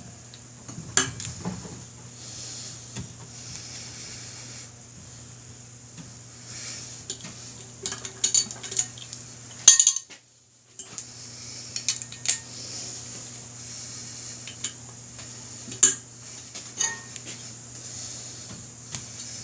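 Scattered metallic clicks and clinks of hand tools on the bolts of a motorcycle wheel's brake rotor as they are torqued, over a steady low hum. The sound cuts out for about a second a little before halfway.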